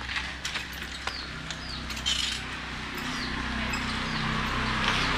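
Small birds chirping in short, quick calls over the low, steady hum of a motorbike engine, which grows louder toward the end as it draws nearer.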